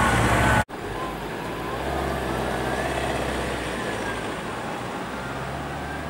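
A loud truck sound cuts off abruptly less than a second in, giving way to the low, steady drone of a Scania 520's V8 diesel heard approaching from a distance.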